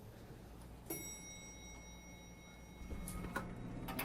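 Elevator arrival chime: a click about a second in, then a steady electronic tone held for about two seconds, followed by a few soft clicks and knocks of the car and doors near the end.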